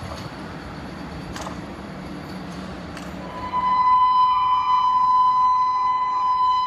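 A train approaching on the track, a steady rumble and hiss with a low hum and a few faint clicks. About four seconds in, louder outro music cuts in with a held electronic tone.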